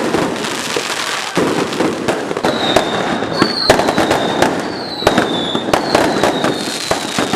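Many fireworks going off together: rapid sharp bangs and crackling over a dense roar, with several thin whistles sliding slightly downward from about two and a half seconds in.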